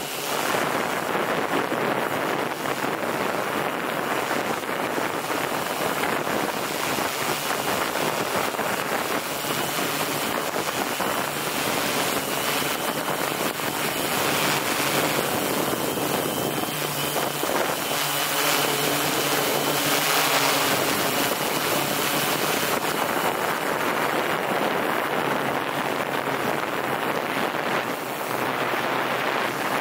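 Drone in flight, heard from the camera it carries: steady propeller and motor noise with wind rushing over the microphone and a faint high whine. A lower hum from the motors comes up for a few seconds about two-thirds of the way through.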